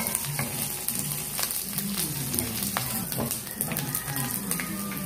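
Diced pork sizzling in hot oil in a wok, stirred with a wooden spatula that knocks against the pan now and then.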